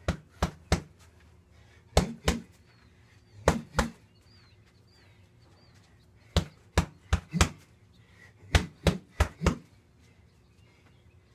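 Strikes landing on a freestanding punching bag: sharp smacks in quick combinations, three, then two, then two, and after a pause two fast runs of four.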